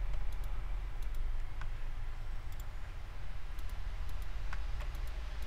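Scattered, sparse clicks of a computer mouse and keyboard over a steady low hum.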